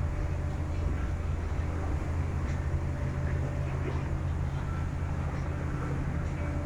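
Staten Island Ferry's engine running with a steady low drone, heard on board.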